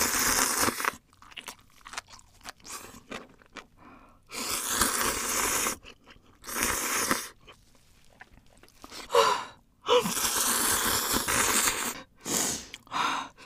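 Close-miked slurping of spicy ramen noodles and broth: several long loud slurps, the longest about two seconds, with wet chewing and mouth clicks between them.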